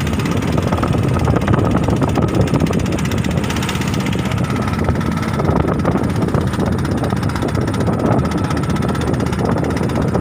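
Steady low rumble of a small boat's engine running without a break.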